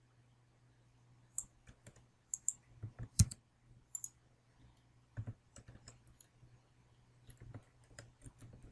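Computer keyboard and mouse clicks as text is entered and edited: irregular single taps scattered throughout, the loudest about three seconds in, over a faint steady low hum.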